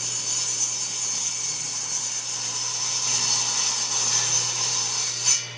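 Power saw ripping wood boards lengthwise, a steady cutting hiss over a constant motor hum that drops away near the end.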